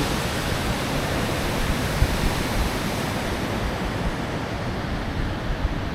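Steady rushing of water pouring through a river dam; the hiss thins a little about four seconds in.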